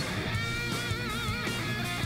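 Background music: electric guitar rock with a steady beat and wavering held notes.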